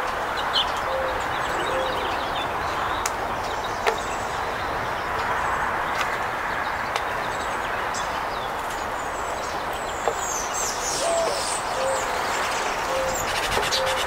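Mourning doves cooing: two series of low, soft coos, one near the start and one in the last few seconds, each opening on a slightly higher note. Underneath runs a steady distant hiss, with a few sharp taps of a scrub-jay pecking on the wooden picnic table and brief high chirps of small songbirds about ten seconds in.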